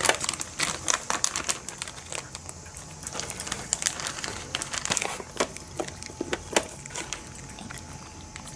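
Cat crunching dry kibble close up: a run of irregular sharp crunches, several a second.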